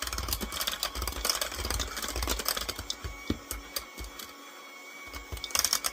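Electric hand mixer running in a bowl of cake batter, a steady motor whine with the beaters clattering against the bowl. It goes quieter for a moment about four seconds in, then picks up again.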